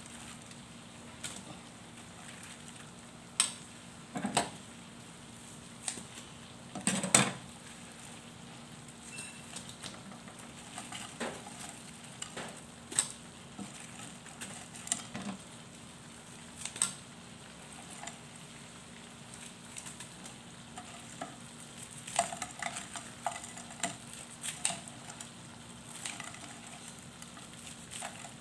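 Spicy sauce sizzling in a stainless steel pan on the stove, a steady faint hiss, while breaded fried fish pieces are laid in. A metal spoon knocks and clinks against the pan now and then, loudest about seven seconds in and several times near the end.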